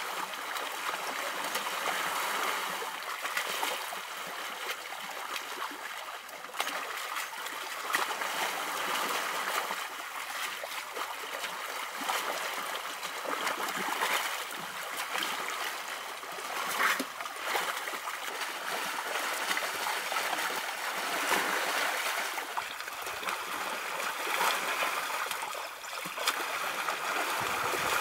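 Wet mud and muddy water sloshing and splashing as young African elephant calves roll and kick in a shallow wallow. It makes a continuous uneven splashing noise with scattered sharper splats.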